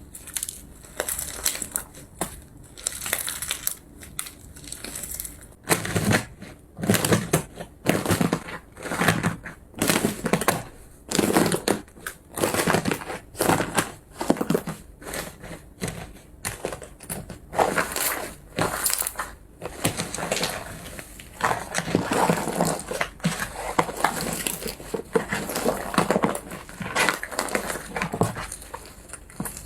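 Slime being squeezed and pressed by hand, making an irregular run of crunchy, crackling squelches, roughly one or two a second, getting stronger about six seconds in.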